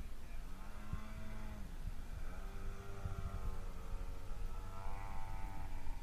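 Radio-controlled 3D aerobatic airplane's motor running in flight, its pitch rising and falling as the throttle changes. Underneath is a low rumbling noise.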